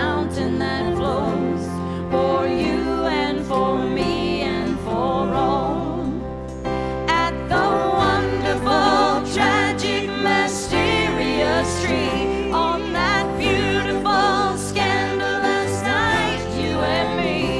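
Live worship band playing a slow song on acoustic guitars, electric guitar and keyboard, with sung vocals carrying vibrato.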